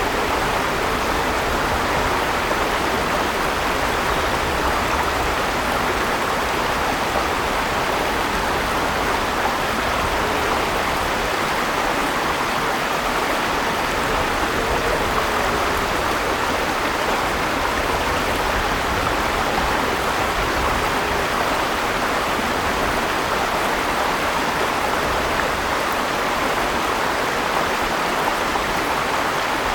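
Steady rushing of river water flowing over rocks, with a faint low rumble underneath.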